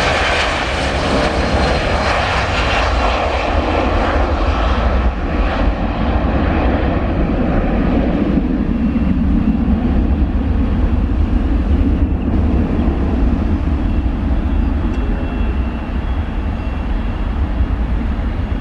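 Boeing 757 twin-jet airliner taking off at full thrust, its engines running loud and steady with a whine that falls in pitch in the first seconds. About eight seconds in the high hiss dies away as the jet climbs out, leaving a low rumble.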